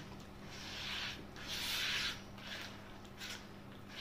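Hands squeezing and kneading a soft, wet cookie-dough base of margarine, yogurt, oil and sugar in a plastic bowl, before the flour is added. It is a soft rubbing sound in a few uneven strokes, the longest near the middle.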